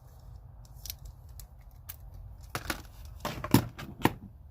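Small metal sockets clicking and clacking as a set on a socket rail is handled: scattered light ticks, then a few louder clacks in the second half.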